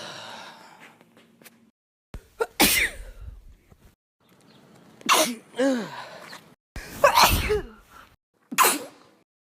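A series of about four human sneezes, each a sudden loud burst, some ending in a falling voiced cry.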